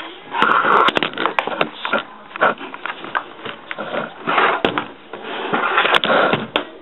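Camera handling noise: the camera being moved with its lens and microphone against fabric, giving irregular rubbing and scraping bursts mixed with sharp clicks and knocks.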